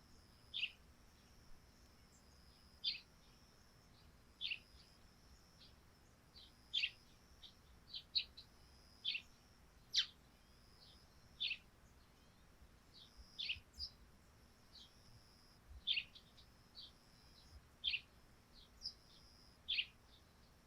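Eurasian tree sparrows chirping: single short, sharp chirps at irregular intervals, roughly one every second or two, with a faint steady high-pitched tone underneath.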